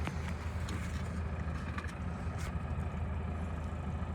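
Isuzu diesel engine of a Hitachi ZX245USLC-6N excavator running steadily, a low even hum with a few faint clicks.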